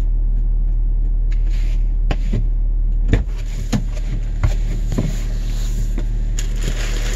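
A steady low mechanical hum runs throughout, with about half a dozen sharp knocks and clicks scattered through the middle. A brighter hiss builds near the end.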